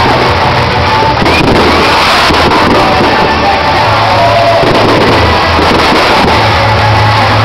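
Loud music with a steady bass line, mixed with many fireworks bangs and crowd noise.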